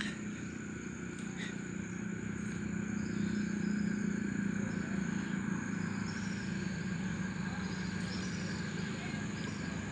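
A steady, low engine hum that gets a little louder a few seconds in and then eases off.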